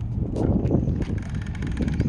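Wind rumbling on the phone microphone, with a few soft knocks from handling.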